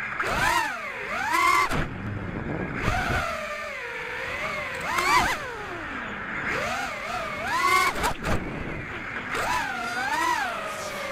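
Small FPV quadcopter's motors and 5x4.8 three-blade propellers whining, the pitch swooping up and down constantly as the throttle changes through flips and turns. Several short rushes of wind noise cut across the whine.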